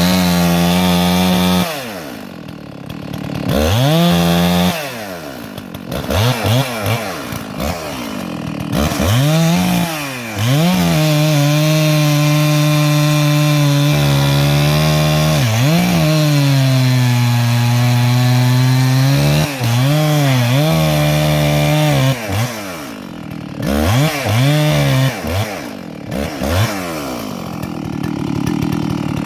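Two-stroke chainsaw cutting up a downed log, revving up to full throttle for each cut and dropping back to idle between cuts several times. During the longer cuts its pitch sags as the chain bites into the wood.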